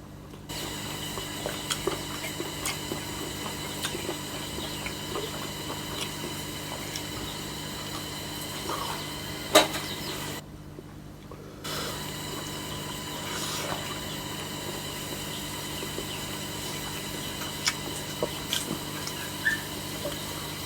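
Close-miked eating sounds of a mukbang: chewing and wet mouth noises with scattered small clicks, one sharper click about nine seconds in, over a steady background hum. The sound drops out briefly about ten seconds in.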